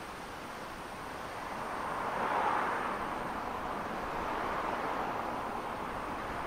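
Rushing noise of a passing vehicle that swells to its loudest about two and a half seconds in and then eases to a steady rush.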